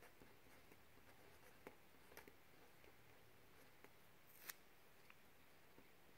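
Faint scratching and tapping of a fine-tipped pen writing on paper: a few small, sharp clicks over a quiet room hiss, the sharpest about four and a half seconds in.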